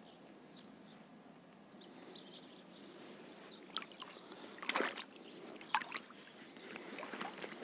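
Faint water sloshing and trickling against a small boat, with a few brief clicks and knocks between about four and six seconds in.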